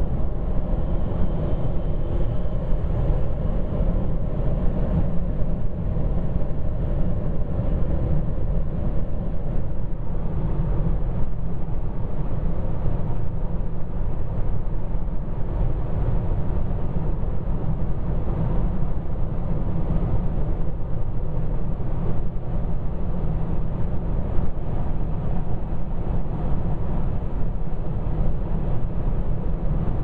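Steady road and wind noise inside a 2010 Nissan Altima Hybrid's cabin at highway speed, mostly a deep, even tyre rumble.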